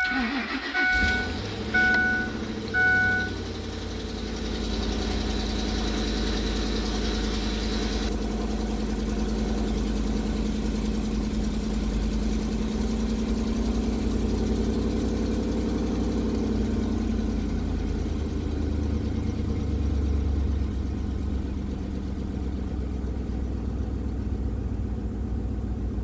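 Ford 5.4L Triton V8 in an 11th-generation F-150 starting from cold about a second in and then idling steadily, heard from inside the cab, with no knock yet. A high whine in the engine sound stops about eight seconds in. The truck's warning chime beeps about once a second for the first three seconds.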